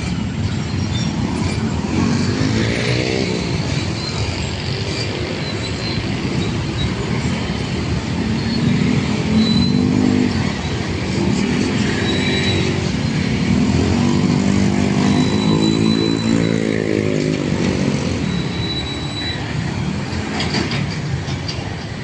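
Busy road traffic: motorcycle and car engines running and pulling away, their pitch rising and falling several times over a steady rumble of passing vehicles.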